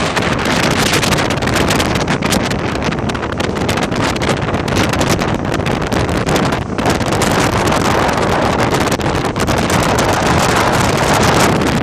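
Strong gale-force wind buffeting the microphone in loud, continuous gusts.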